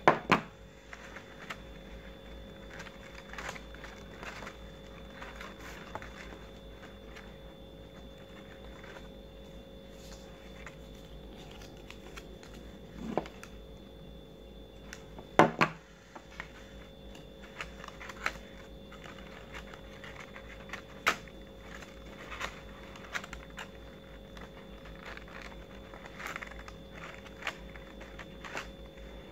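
Small handling sounds of stiff paper petals and a hot glue gun: scattered light taps, clicks and rustles as petals are glued into a paper flower, with two louder knocks, one right at the start and one about halfway through. A steady faint hum runs underneath.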